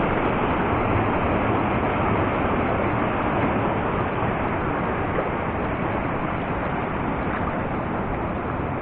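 Shallow mountain stream rushing over rocks: a steady wash of water noise.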